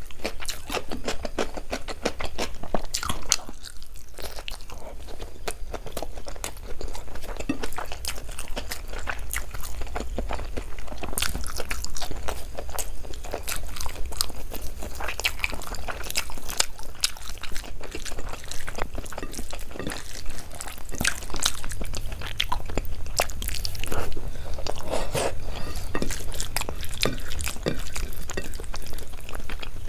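A person chewing and biting food close to the microphone, with many sharp, irregular crunches. A steady low hum sits underneath.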